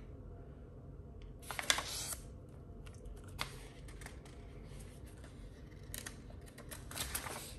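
Paper insert pages of a ring-bound planner being turned and handled by hand, rustling in a few short bursts, the loudest about one and a half to two seconds in.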